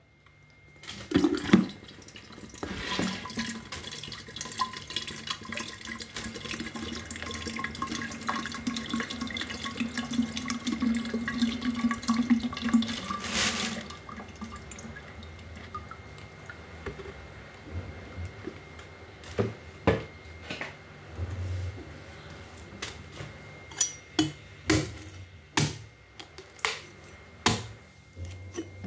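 Coconut water from a young coconut draining into a plastic pitcher: a steady trickling pour for about twelve seconds that stops abruptly. After it come scattered sharp knocks and taps as the coconut is handled and a cleaver is set to it.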